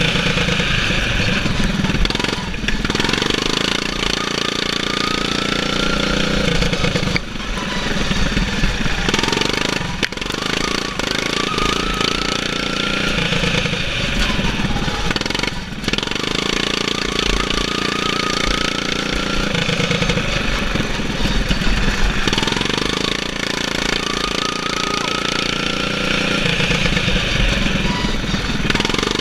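Racing lawn mower's governed engine, limited to 3650 rpm, running hard under the driver. Every few seconds its pitch sags and then climbs back up.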